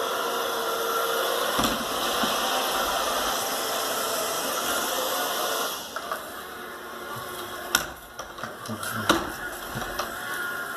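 Shark ION RV750 robot vacuum running, its motor and brushes making a steady whirring noise. About six seconds in the noise drops, and scattered clicks and knocks follow.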